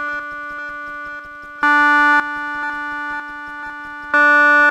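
Software synthesizer's analog-style oscillator playing a square wave: the same buzzy note repeats about every two and a half seconds, each loud strike followed by quieter echoes that step down in level. The tone's colour shifts from note to note as the square wave's duty cycle is changed.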